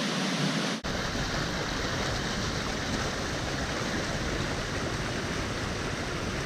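A river running across the road, a steady rush of water. About a second in the sound drops out for an instant and comes back deeper.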